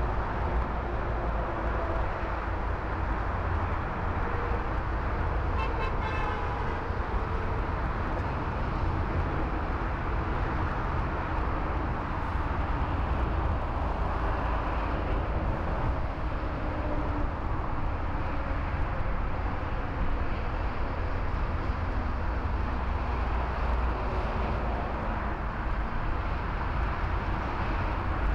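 Steady jet engine noise from a four-engined Boeing 747 rolling out on the runway just after touchdown, a continuous rumble with engine tones slowly shifting in pitch.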